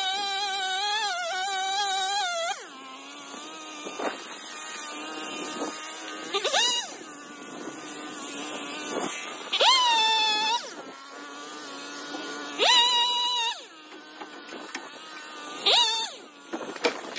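Two-stroke chainsaw revving in short bursts of one to three seconds and dropping back to idle between them, five times, the first and longest running about two and a half seconds with its pitch wavering as it cuts.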